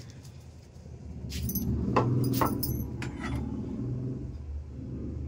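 A few light clinks and rattles of kitchenware being handled, mostly in the first half, over a steady low hum.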